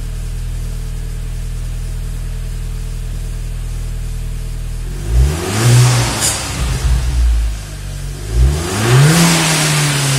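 Skoda Octavia vRS 2.0 TFSI turbocharged four-cylinder, through a full 3-inch Milltek turbo-back exhaust with resonator, idling steadily, then blipped twice: about five seconds in and again about eight and a half seconds in, each rev rising sharply and dropping back.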